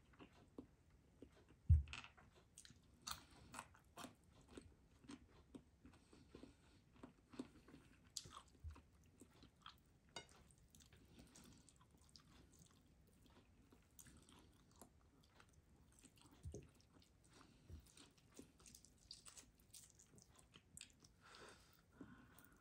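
Faint close-up eating sounds: chewing and small clicks as baked chicken is eaten by hand, with one low thump about two seconds in.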